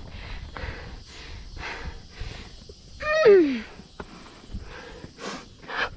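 A woman's hard, nervous breathing from the exertion of a steep climb, a rapid series of breaths, with a short groan falling in pitch about three seconds in.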